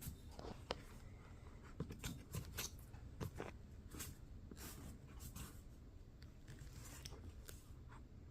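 Scattered faint clicks and scratchy rubbing of a phone being tilted and adjusted in a foam tripod mount: handling noise close to the phone's microphone.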